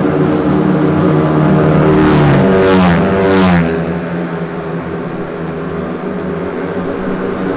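Racing underbone motorcycle engines running at high revs. One bike passes close about two to three and a half seconds in, its engine note falling in pitch as it goes by, and other engines keep running at a steady pitch underneath.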